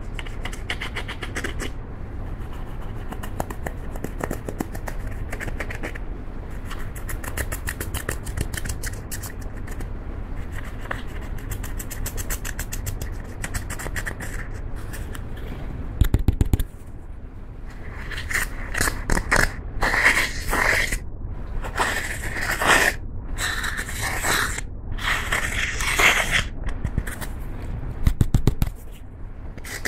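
Plastic spatula scraping and crumbling pressed eyeshadow powder in its palette pans, a dense fine scratching. About halfway through there is a short low thud. After that comes a run of louder separate scraping strokes as the crumbs are worked and scraped out of the pans.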